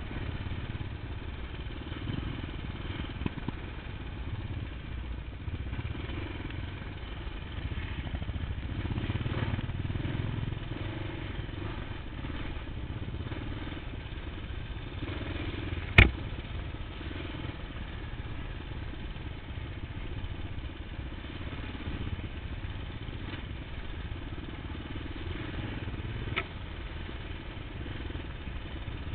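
Kawasaki KLX 650's single-cylinder four-stroke engine running, rising and falling with the throttle and swelling about a third of the way in. A sharp knock about halfway through is the loudest sound, and a fainter click comes near the end.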